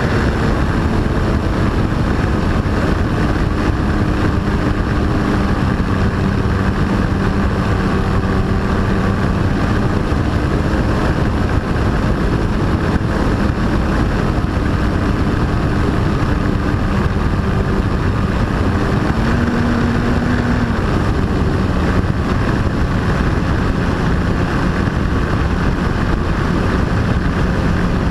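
RC plane's motor and propeller heard from a camera mounted on the plane, running steadily in flight under heavy wind rush on the microphone. The pitch briefly rises about 19 seconds in.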